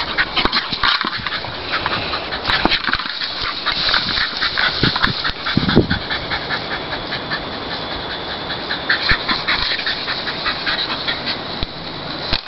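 A Staffordshire bull terrier panting and snuffling in quick, short strokes as it plays, rustling through long grass.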